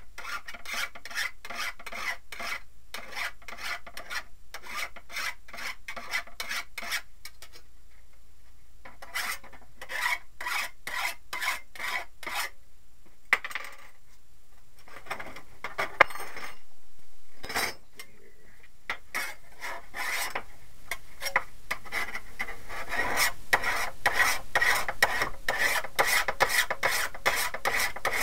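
A round chainsaw file rasping back and forth across the thin steel of an old wood-saw blade, in quick strokes about three a second. The filing stops twice, briefly about a third of the way in and for several seconds in the middle, then resumes louder.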